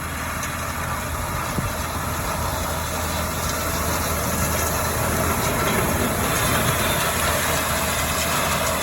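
Tractor engine running steadily as it pulls a stubble rake with a seeder through barley stubble, gradually growing a little louder.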